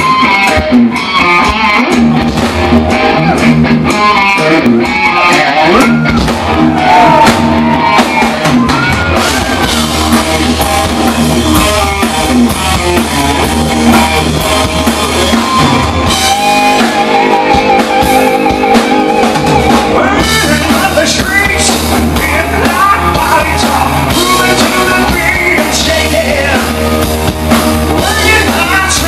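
Hard rock band playing loudly live: electric guitar over bass guitar and a drum kit.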